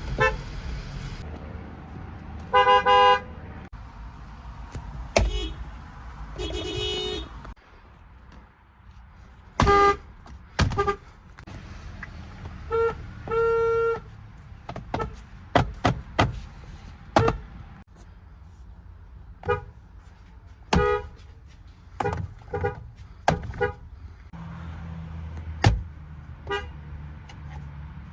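Car horns from a string of different cars honked one after another, mostly quick short taps with a few longer blasts under a second, each car's horn a different pitch. Sharp clicks and knocks fall between some of the honks.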